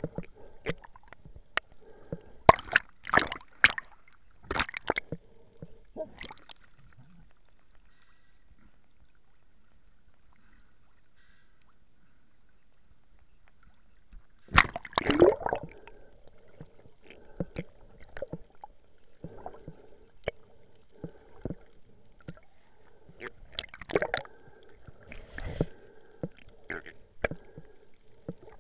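Underwater clicks and knocks, scattered and irregular, with a quiet stretch in the first half and a louder gurgling burst about halfway through.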